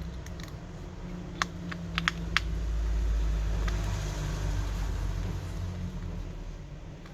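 A few sharp clicks and taps of a small screwdriver and screws on a smartphone's frame as its screws are driven back in, followed by a low rumble of handling.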